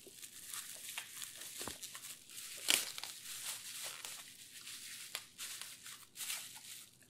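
Plastic bubble wrap crinkling and rustling as it is handled and pulled off by hand, with one sharper, louder crackle a little under three seconds in.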